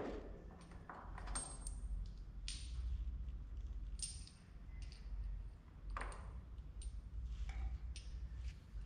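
Scattered light metal clinks and clicks as stump grinder teeth and their threaded fastening hardware are handled on a steel tool cart, over a steady low hum.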